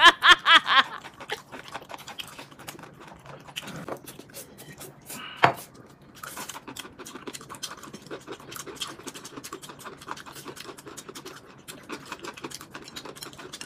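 Close-up eating sounds: crisp chewing of crunchy pickled mustard tuber and slurping of noodles. Many small clicks and crackles run through, with a sharper click about five and a half seconds in.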